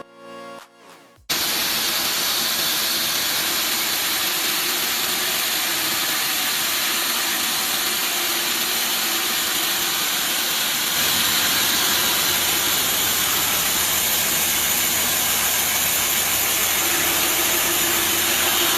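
Steady, loud hissing noise of heavy machinery running. It starts abruptly about a second in as music cuts off, and a low hum joins it about halfway through.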